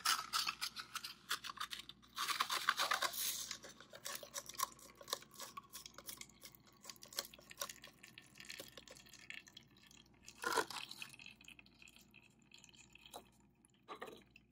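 Wooden craft stick stirring wet gravel in a plastic cup, a rapid gritty scraping, which then thins out to scattered clicks and drips as the wet mixture is poured onto a screen over a funnel. A brief louder sound comes about ten and a half seconds in.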